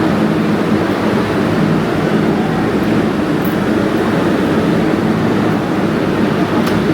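Loud, steady subway-station rumble with a constant low hum, the noise of trains and machinery running in the station.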